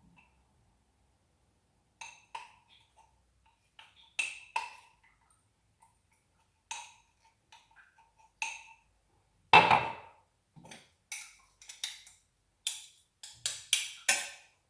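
Irregular clinks and taps of a spoon against glassware as honey is added to the garlic and olive oil, each with a short ring. There is a louder knock about two-thirds of the way in and a quick run of taps near the end.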